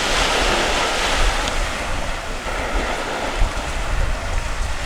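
Sea waves washing on the shore, a hissing surge swelling near the start, with wind rumbling on the microphone.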